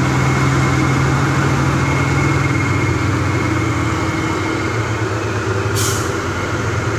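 Diesel engines of heavily loaded trucks pulling slowly past, a loud, steady low engine drone. A short hiss of air, typical of air brakes, comes about six seconds in.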